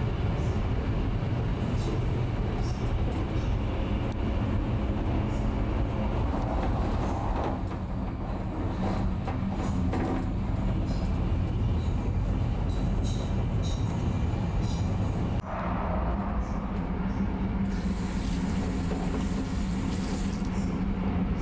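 Steady low rumble of a Shinkansen Nozomi bullet train running at speed, heard from inside its lavatory. Near the end, water runs from the washbasin tap for a couple of seconds.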